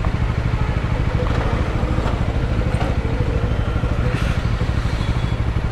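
Vehicle engine running steadily while driving: a low, fast-pulsing hum.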